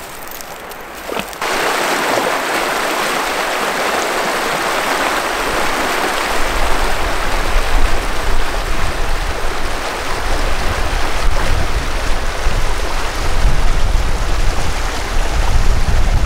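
River water rushing over a shallow rocky riffle: a steady hiss that starts suddenly about a second in, with an uneven low rumble joining about six seconds in.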